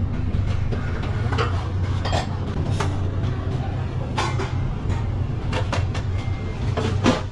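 Eatery ambience: a steady low rumble of traffic with scattered sharp clinks and knocks of dishes and cutlery.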